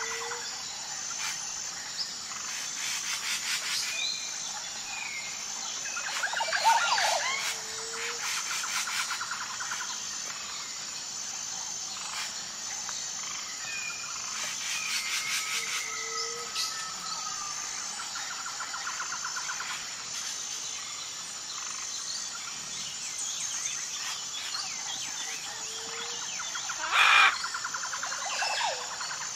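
Tropical forest ambience: a steady, high, pulsing insect drone under assorted bird chirps and trills, with a short low call repeating every four to five seconds. Louder bursts of calls come about seven seconds in and near the end.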